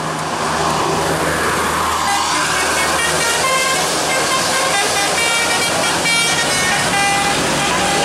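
Tourist bus approaching with its engine running, then from about two and a half seconds in its musical 'telolet' air horn plays a fast melody of short, stepped notes as it passes.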